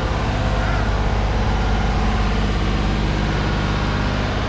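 Stationary engine that supplies power for a farm's equipment, running steadily at an even, low pitch.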